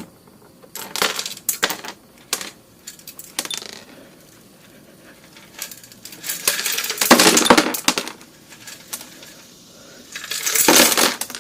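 Loose chunks of broken catalytic converter clinking and rattling inside a removed Porsche 928 rear muffler as it is tipped and shaken. First comes a scatter of short clinks, then two longer rattles in the second half. The loose pieces are a sign that the catalytic converters upstream have broken up.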